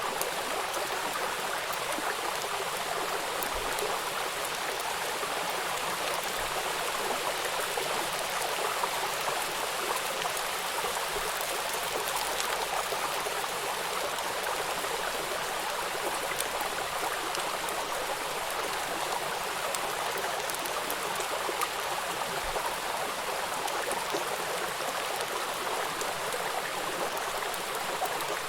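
Steady rainfall: an even hiss of rain with scattered faint drop ticks, unchanging throughout.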